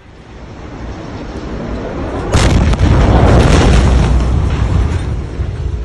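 Huge ammonium nitrate explosion heard from across the city. A hiss swells over the first two seconds, then a sudden, very loud boom hits. Its deep rumble carries on for a couple of seconds and slowly eases off.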